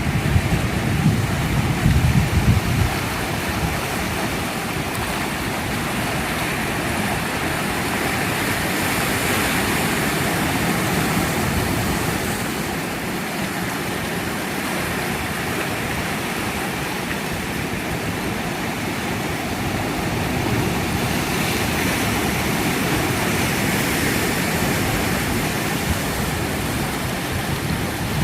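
Sea waves washing ashore: a continuous rush that swells and eases in slow surges, heaviest in the first few seconds.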